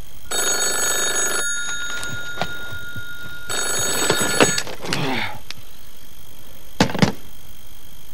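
A telephone ringing twice, each ring about a second long, followed by a short falling sound and two sharp knocks near the end.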